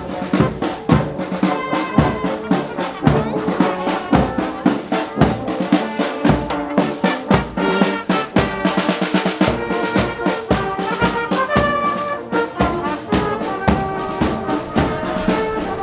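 A brass band playing a tune, with trumpets and trombones over drums.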